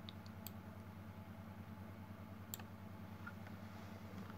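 A few sharp computer mouse clicks, the clearest about half a second and about two and a half seconds in, over a steady low electrical hum.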